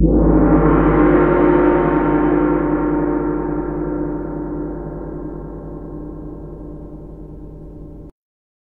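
A single gong stroke, ringing with many overtones and slowly dying away over about eight seconds before being cut off abruptly.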